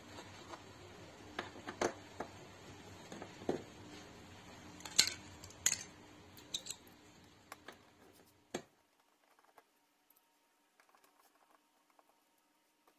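Scattered plastic clicks and knocks from hands working on the back of a Seat Leon door trim panel and its wiring connectors. The steady background hiss stops abruptly about two-thirds through, leaving only a few faint clicks.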